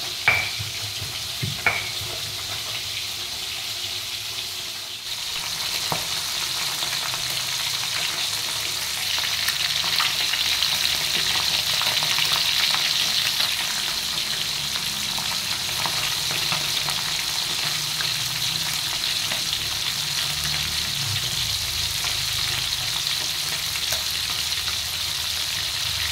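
A pestle grinding in a mortar with a few sharp knocks in the first seconds, then whole fish shallow-frying in hot oil in a wok: a steady sizzle from about five seconds in.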